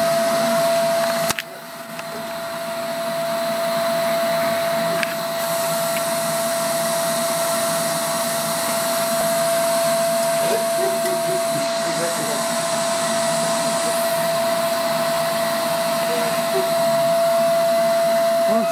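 Canister vacuum cleaner running steadily with a constant whine. A little over a second in there is a click and the sound drops, then builds back up over a couple of seconds.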